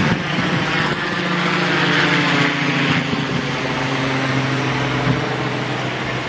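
Car engine idling steadily, with a short knock about five seconds in.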